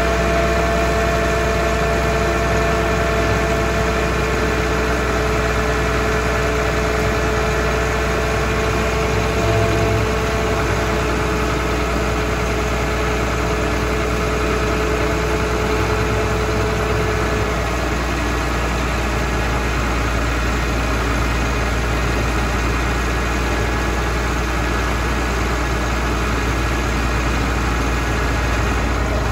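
Heavy diesel truck engine idling steadily, with a faint steady whine over it that fades out about two-thirds of the way through.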